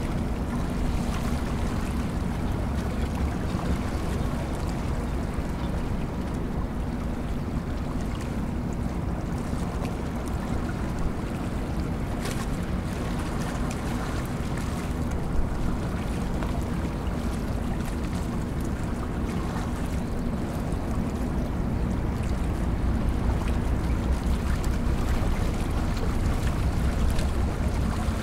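Diesel engines of two harbour tugboats running, a steady low drone with a faint hum, growing a little louder in the last few seconds.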